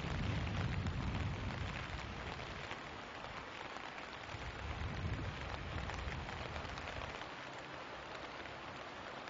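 Heavy rain falling, a steady hiss of drops, with a low rumble during the first couple of seconds and again about five seconds in.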